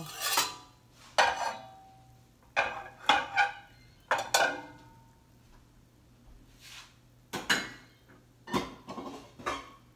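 Stainless steel cookware clattering: a ladle knocking against a stainless pot and a skillet being lifted and moved over gas-stove grates. It comes as about ten sharp metallic clanks, some in quick pairs, each ringing briefly.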